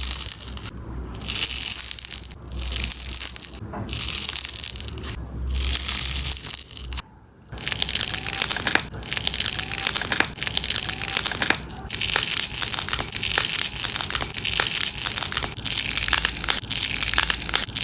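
Crunchy slime being squeezed and pressed, giving dense crackling and popping. At first it comes in pushes with short pauses about every second and a half, then runs on almost without a break after a brief drop about halfway.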